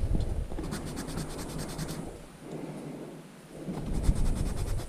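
Metal file rasping in rapid back-and-forth strokes on a plastic speedcube corner piece, rounding its edges over. The filing eases off about two seconds in and picks up again near the end.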